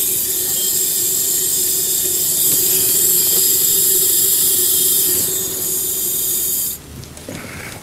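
Gas escaping with a loud, steady hiss from a line torn open at a house's gas meter. The hiss cuts off suddenly near the end as the supply is turned off at the meter.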